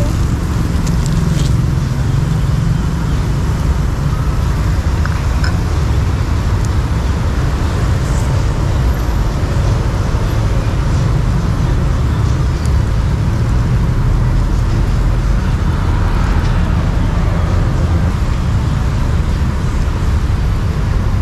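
Steady low rumble of road traffic, with a few faint light clicks scattered through it.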